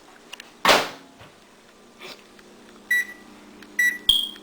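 Microwave oven being set: a loud clunk about a second in, then two short keypad beeps and a higher, slightly longer beep just after the fourth second.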